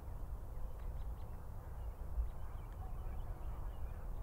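Open-air ambience: a low steady rumble with faint, scattered bird calls.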